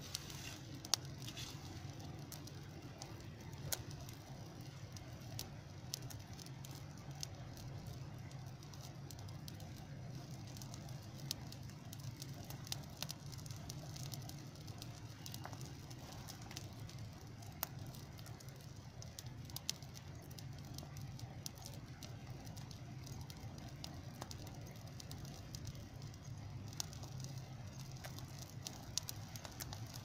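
Small open fire crackling, with scattered sharp pops over a steady low rumble.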